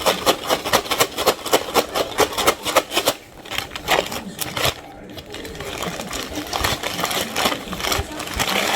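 Paper bag of McDonald's shaker fries being shaken to coat the fries in seasoning: a fast rhythmic rustle, about five or six shakes a second, that stops about three seconds in. Softer rustling follows.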